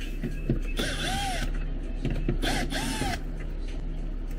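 Cordless drill/driver run twice, about a second each, its motor spinning up and winding down as it works fasteners on a car's rear door panel.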